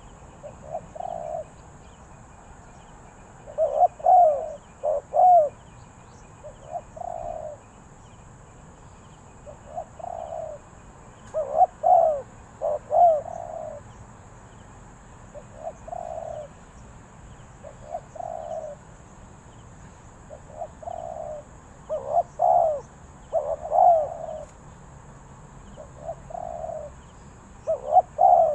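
Spotted dove cooing: short phrases of two or three low coos, repeated every few seconds.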